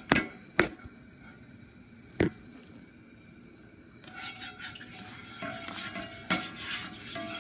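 Spoon knocking and scraping in a frying pan while spreading butter: three sharp clinks in the first couple of seconds, then from about halfway a busier run of scraping and clatter.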